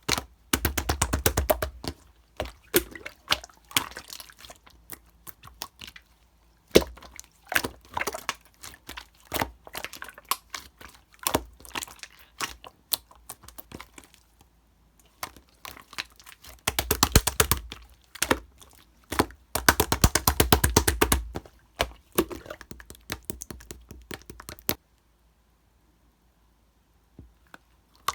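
Hands pressing, folding and poking slime, which gives off quick crackling clicks and pops from trapped air, in several bursts of rapid clicking over soft thuds. A pause of about two seconds comes near the end.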